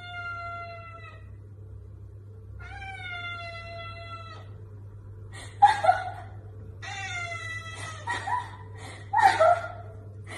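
Tabby cat meowing: long drawn-out meows that sag slightly in pitch, with shorter, louder cries about six and nine seconds in.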